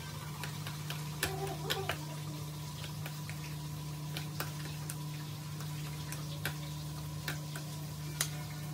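Metal spoon stirring a thick chicken and mayonnaise sandwich filling in a ceramic bowl, the spoon clicking lightly and irregularly against the bowl over a steady low hum.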